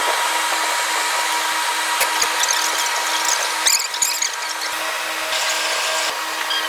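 A power tool running steadily with a constant whine, with a few short clicks and knocks over it.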